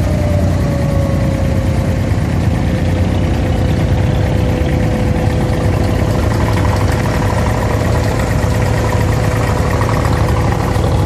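A boat's engine running steadily: a low rumble with a thin whine above it that sinks a little in pitch over the first couple of seconds and then holds.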